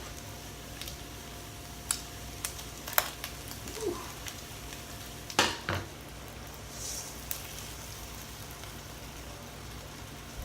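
Pancetta sizzling in a hot pan, a steady hiss, with a few sharp clicks and knocks along the way, the loudest about five and a half seconds in.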